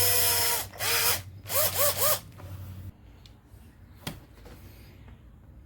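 Small battery-powered drill drilling out the rivet on a die-cast toy car's base. A short run is followed by several quick trigger pulses, the motor whine rising and falling with each. A single sharp click comes later.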